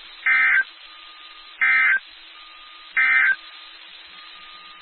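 Emergency Alert System end-of-message code: three short, identical bursts of digital data tones, about 1.4 s apart, over a steady background hiss.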